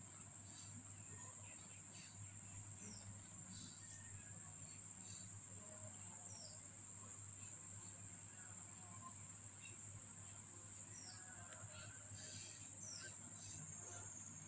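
Faint background: a steady high-pitched whine over a low hum, with short falling chirps every second or two.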